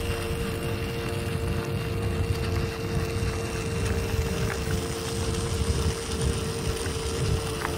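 Small battery-powered DC motor of a homemade toy tractor whining at a steady pitch as it drives the wheels, over a low rumble.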